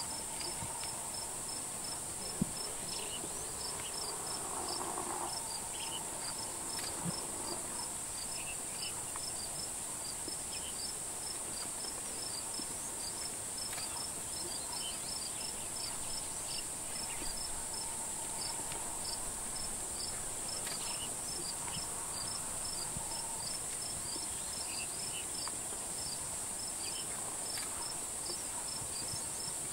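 Steady high-pitched drone of insects, with a quick, regular train of short chirps from another insect.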